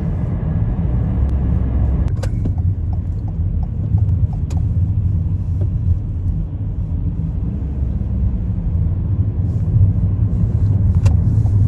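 Steady low rumble of a car's engine and tyres, heard from inside the moving car, with a few faint clicks here and there.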